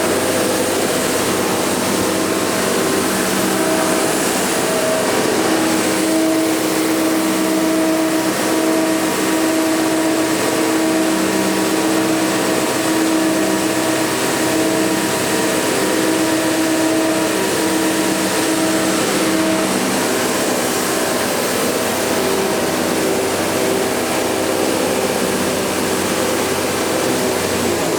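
AEM Timesavers 37-inch wide belt sander running at full speed, its 20-horsepower motor driving the sanding head while the feed conveyor moves: a steady, loud mechanical whir with several held hum tones.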